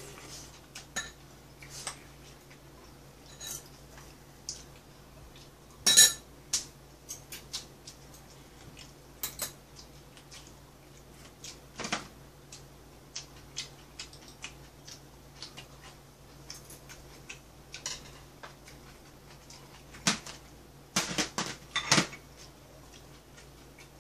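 Metal spoon and chopsticks clinking and knocking against bowls and dishes during a meal: scattered short clicks, the loudest knock about six seconds in and a quick cluster of knocks near the end, over a steady low hum.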